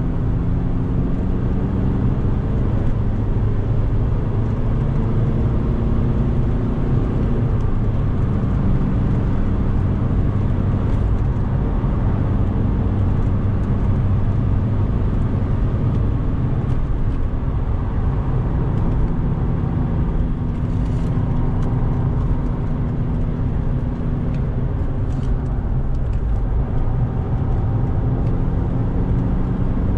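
Mk5 Golf's 2.0 TDI Pumpe-Düse four-cylinder diesel engine driving hard around a lap, its pitch drifting slowly up and down with the throttle.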